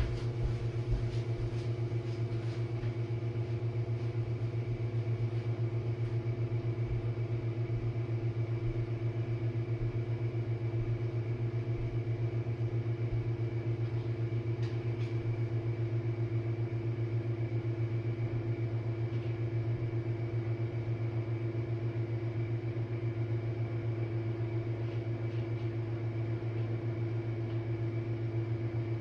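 Jenn-Air dishwasher in its main wash, its pump running with a steady, even hum. A couple of faint knocks come in the first second or so.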